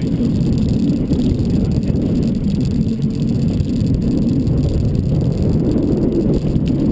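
Steady low rumble aboard a fishing boat, with no clear engine note.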